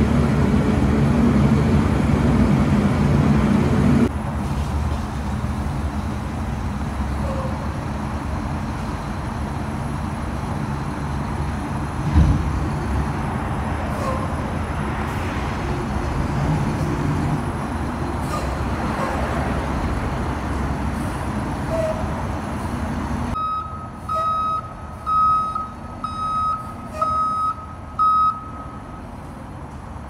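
Rear-loader garbage truck's engine running, louder for the first four seconds and then steady, with a single knock about twelve seconds in. Near the end its reversing alarm beeps about once a second for around five seconds.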